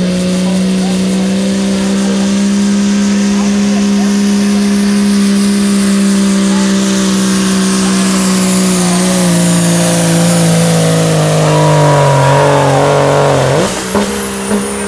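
Cummins turbodiesel pickup at full throttle pulling a weight-transfer sled: a loud, steady engine drone that slowly sags in pitch over the last few seconds as the sled's load bogs it down. Near the end the engine note breaks off abruptly and a high whine falls away.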